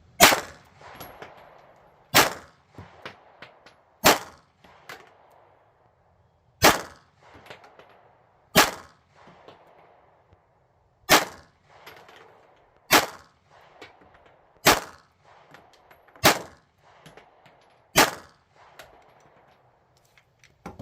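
Smith & Wesson M&P 2.0 pistol fired slowly at a close target: ten single shots about two seconds apart, each followed by a short ringing echo, with faint smaller clicks between shots.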